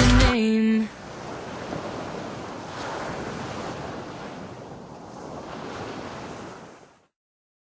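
The music's last held chord cuts off under a second in, followed by a steady rushing noise, like wind or surf, for about six seconds that stops suddenly.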